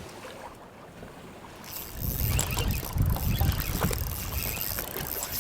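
Wind and waves on a small fishing boat on open water: a rushing, gusting noise that rises sharply about two seconds in, heavy in the low end like wind buffeting the microphone.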